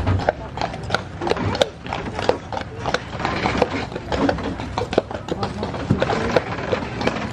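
Horses' hooves clopping at a walk on a concrete path, with the wooden wagon they pull rattling and knocking: many sharp, irregular clacks.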